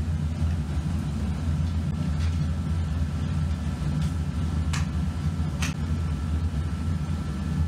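Steady low rumble, with a few short scraping hisses in the middle fitting a shovel digging into and tipping molding sand.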